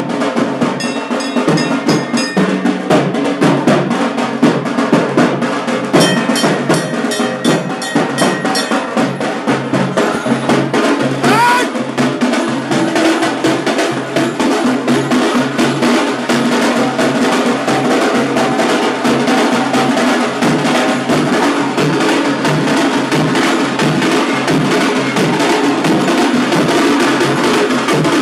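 Festival drum band playing a fast, unbroken rhythm on barrel drums, loud throughout, with a brief rising whistle-like sound about 11 seconds in.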